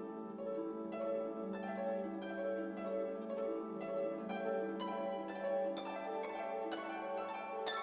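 Instrumental background music: a run of plucked string notes over a held low tone.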